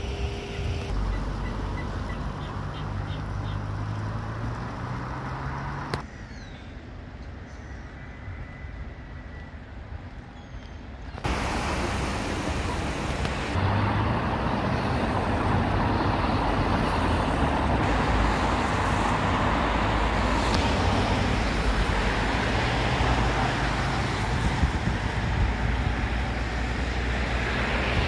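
Road traffic passing with wind on the microphone, a dense low rumble and hiss. The background changes abruptly several times, getting louder and denser in the second half.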